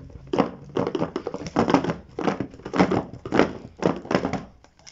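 Cellophane shrink-wrap on a smartphone box crinkling and rustling under the fingers as the box is opened, in short scratchy bursts about two a second.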